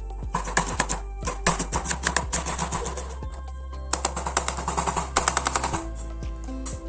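Kitchen knife chopping onion in quick runs of strokes, over background music; the chopping stops near the end.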